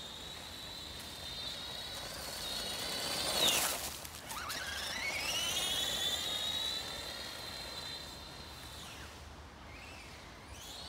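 Electric drive of a 1:18-scale Traxxas Teton RC truck whining as it runs. About three and a half seconds in it is loudest and its pitch falls steeply as it slows. It then climbs again as the truck accelerates, holds steady and fades away near the end.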